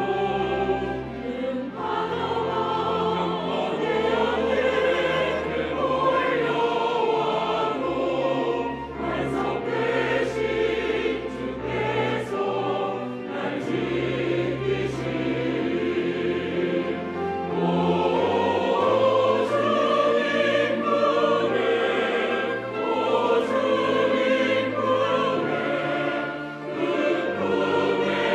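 Church choir singing a sacred anthem, accompanied by piano and organ.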